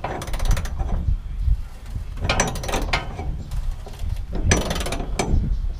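Extendable socket ratchet, lengthened with a jack handle, working a rusty 18 mm bed-to-frame bolt loose: three quick runs of pawl clicks as the handle is swung back between strokes.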